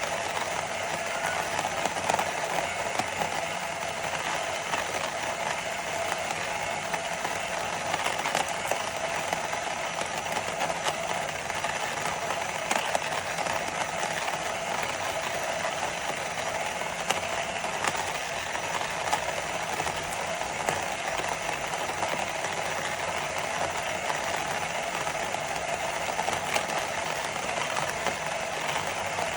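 Lamido cordless electric conical burr coffee grinder running steadily as it grinds beans, an even motor drone with faint rattling clicks. The grinder is slow, so the grind runs on for minutes.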